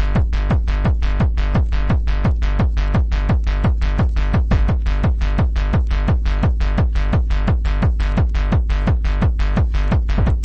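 Techno track: a driving electronic beat of about four even hits a second over a steady deep bass.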